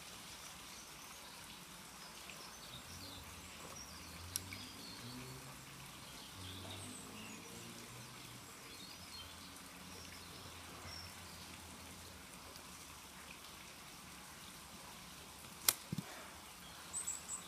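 Quiet garden ambience: faint birdsong and a faint low hum, with light clicks from handling the wooden bow and drill, a small one about four seconds in and a sharper one near the end.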